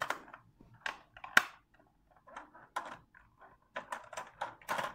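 Hard plastic clicks and knocks from handling a Bruder Land Rover toy: its bonnet is pushed shut and the toy is lifted and turned over. One sharper knock comes about a second and a half in.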